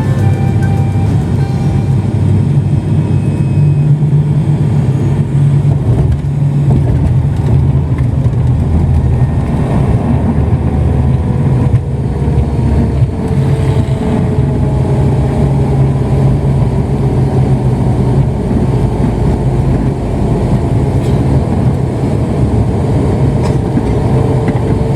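Cabin noise of a turboprop airliner in flight: a steady, loud drone of the engines and propellers, with a faint tone that slowly falls in pitch through the second half.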